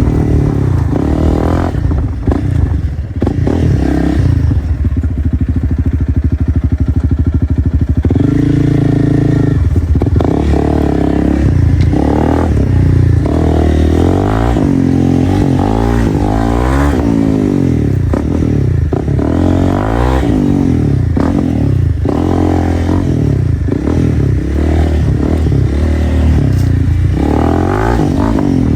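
2025 Honda CRF300L's single-cylinder four-stroke engine running through a straight-piped Dominator exhaust. It holds a low steady pace for several seconds, then is revved up and down again and again for the rest of the stretch.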